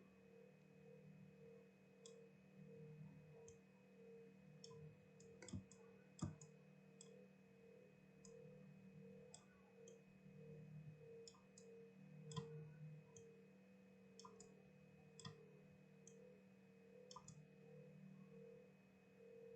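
Near silence: faint, irregular clicks from computer input during digital sculpting, with two slightly louder clicks about a third of the way in, over a low steady electrical hum and a faint constant high tone.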